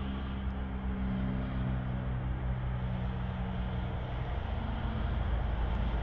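A steady low engine-like drone with a few held tones and an even hiss behind it, without breaks.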